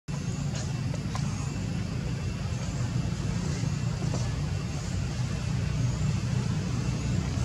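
Steady low rumble of a vehicle engine, with faint high chirps now and then.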